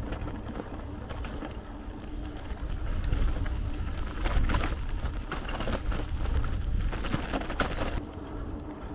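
Mountain bike riding along with the rattling clicks of the bike over the road surface, under a steady low rumble of wind on the camera microphone.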